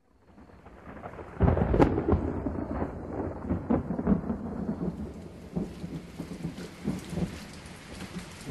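Thunderstorm: rain fades in, then a sudden thunderclap about a second and a half in, with thunder rumbling on under steady rain.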